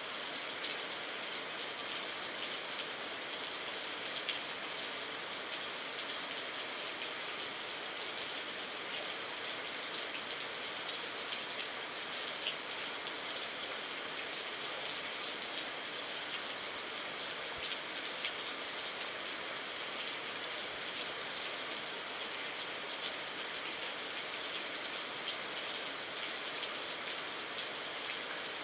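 Steady rain falling: an even hiss with fine scattered drop ticks, unchanging throughout.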